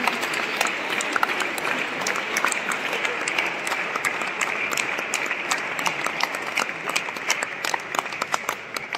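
A large crowd applauding steadily, the clapping thinning out and fading near the end.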